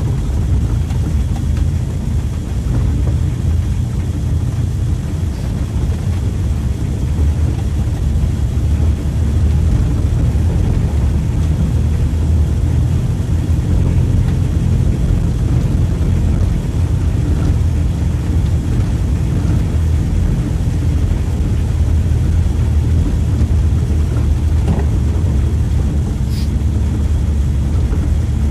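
Mitsubishi L300 pickup driving slowly over a rough dirt track, heard from inside the cab: a steady low engine and road rumble.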